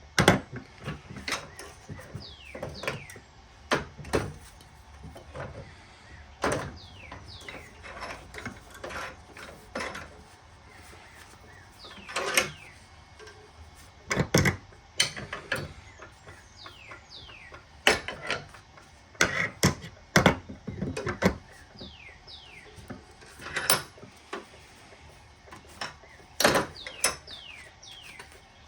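Metal clanks and knocks at irregular intervals, with a few short falling squeaks, as a furnace burner part is worked loose from its steel mounting bar in a vise.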